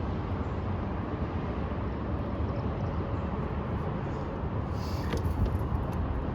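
Steady low rumble of wind buffeting the microphone, with a few faint taps about five seconds in.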